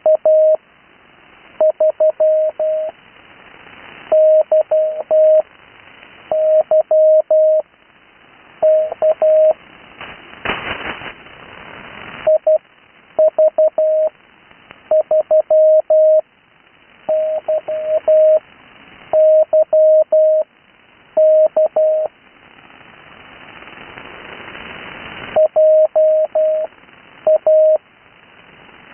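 Morse code (CW) on the 80 m amateur band heard through an HF receiver: a single steady-pitched tone keyed in dots and dashes, sent as separate characters with pauses between them, over band hiss that swells in the gaps. A burst of static comes about ten seconds in.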